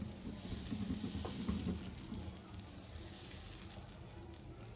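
Dosa batter sizzling on a hot tawa as a steel ladle spreads it in spirals, a steady hiss with a few faint ticks.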